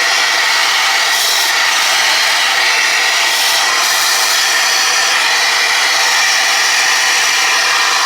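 Shop vac hose nozzle sucking dust and lint out of a space heater: a loud, steady rush of air. The vac's motor is hardly heard, being behind a closed door.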